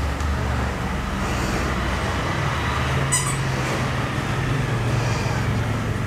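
Steady low mechanical hum with a noisy background haze, of the kind heard near road traffic or running machinery. A short, quick rattle of clicks comes about three seconds in.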